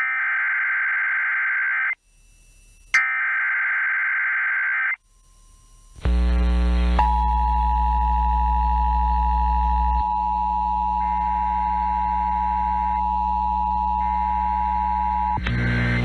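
Emergency Alert System SAME header data: two bursts of warbling digital tones, each about two seconds long, a second apart, encoding a severe thunderstorm watch. About six seconds in, music begins. A second later the steady EAS two-tone attention signal starts over the music and holds for about eight seconds.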